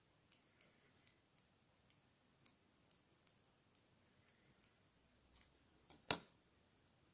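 A stylus tapping on a 2.4-inch touch-panel TFT screen: a string of light, sharp clicks at an uneven pace, with one louder tap about six seconds in.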